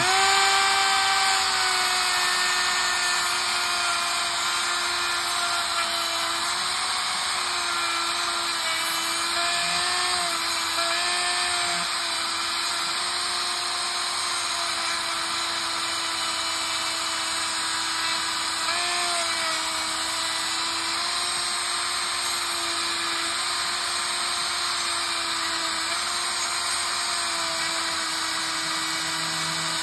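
Rotary tool with a small cutoff wheel running at a steady high whine, starting up at the outset, as it cuts along the edge of a plastic sensor housing. The pitch dips slightly now and then as the wheel bites into the plastic.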